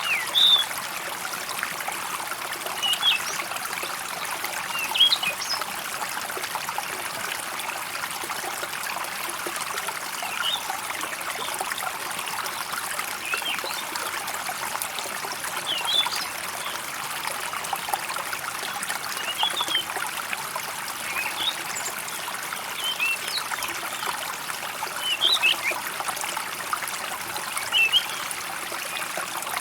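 Stream trickling steadily, with short high bird chirps breaking in every few seconds.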